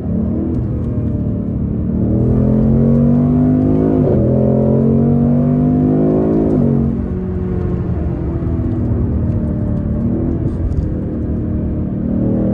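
Ford Mustang GT's 5.0 V8 exhaust, picked up by a microphone at the tailpipe, under way. The engine pitch climbs under acceleration and drops sharply at upshifts about four and six and a half seconds in, then settles to a steady lower pitch while cruising and starts rising again near the end.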